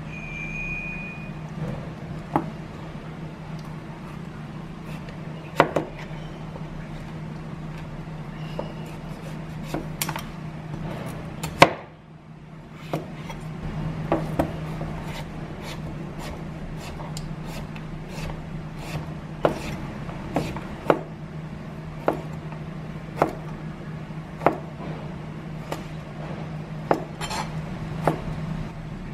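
A chef's knife cutting kabocha squash on a cutting board: irregular sharp knocks as the blade goes through the hard flesh and skin and strikes the board, over a steady low hum.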